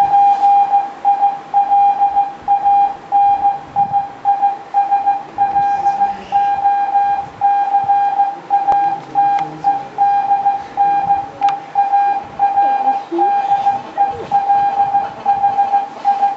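Morse code sent as a single beep tone, keyed on and off in short dots and longer dashes as a message is sent.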